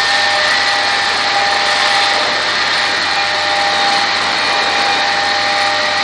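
Airport crash tenders running their engines and fire pumps hard while their roof turrets blast water jets onto a mock aircraft: a loud, steady rushing with several high steady whining tones over it.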